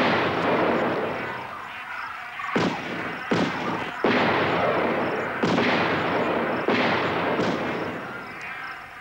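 Volley of shotgun shots at a duck shoot: about seven blasts at irregular spacing, each trailing off slowly and overlapping the next.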